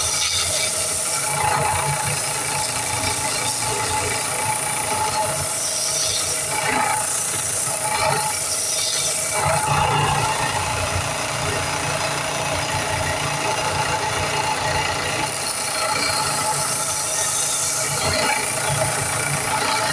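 A power tool running steadily while wood is shaped on it, its even hiss and hum swelling now and then as the work is pressed against it.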